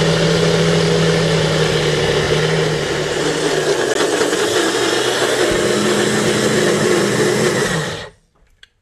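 Small personal bullet-style blender running at full power on a thick nut-butter chocolate spread, its motor hum shifting pitch about halfway through, then switched off about eight seconds in.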